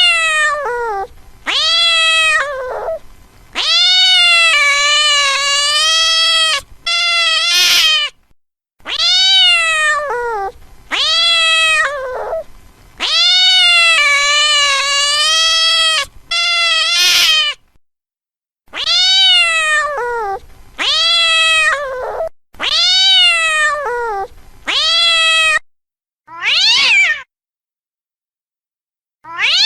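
Domestic cat meowing over and over, about a dozen drawn-out meows that rise and then fall in pitch, some held for two or three seconds, separated by short silent gaps.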